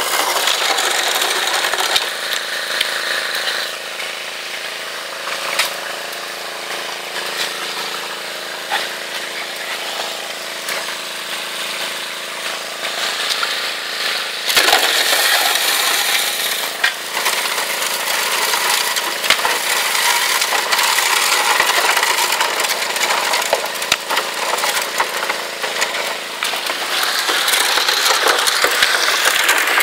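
Highbanker at work: water rushing over the sluice with a steady hum from the pump's small engine underneath. Gravel and rocks clatter with occasional sharp knocks from a shovel. It grows louder about halfway through and again near the end.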